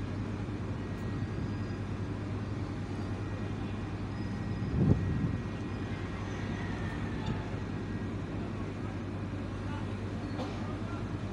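Steady low drone of a passenger ferry's diesel engines, with a short louder low rumble about five seconds in.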